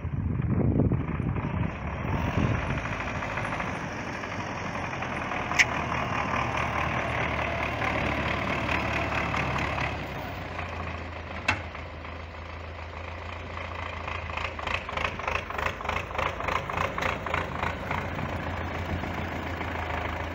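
MTZ tractor's diesel engine running with a steady low hum. From about two-thirds of the way through, an even, pulsing diesel clatter grows stronger as the loader tractor comes closer. Two sharp clicks sound briefly along the way.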